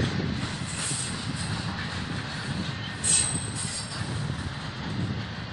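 BNSF intermodal freight train's trailer-on-flatcar cars rolling past with a steady rumble of wheels on rail. About three seconds in comes a brief, high wheel squeal.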